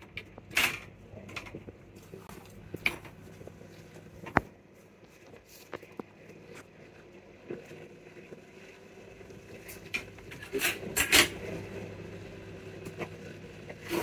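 Scattered light clicks and taps as multimeter probes and small tools are handled on a workbench, over a faint steady hum, with a few louder clacks close together near the end.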